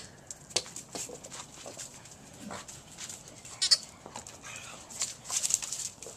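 A rubber squeaky ball lands on stone tile with a knock, then clicks and taps as bull terriers scramble after it. The toy gives one short squeak a little past halfway, as a dog grabs it in its mouth, and the dogs make snuffling animal noises near the end.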